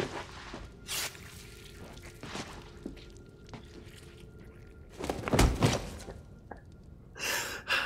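A few dull thumps and knocks, the loudest and deepest about five seconds in, followed by a short sniffling breath near the end.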